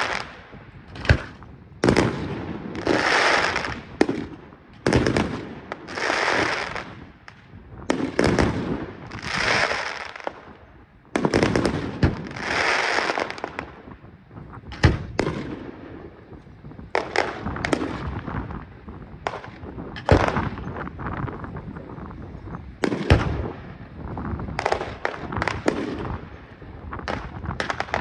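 Display fireworks going off in a steady run: each sharp bang is followed by about a second of hiss, one every couple of seconds in the first half, then quicker, scattered bangs in the second half.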